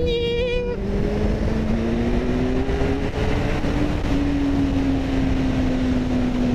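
Kawasaki Z800 inline-four engine pulling steadily in gear, its pitch climbing gradually for about four seconds and then holding and easing slightly, with wind rushing over a helmet-mounted microphone.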